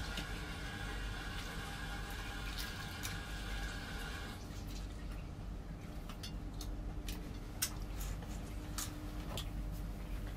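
A steady hum that cuts off suddenly about four seconds in, then scattered light clicks and taps of eating by hand at a table of plates.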